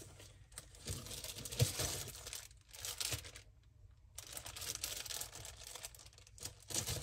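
Crinkling and rustling of packaged scrapbook supplies being handled and sorted, in uneven stretches with a short pause about halfway through.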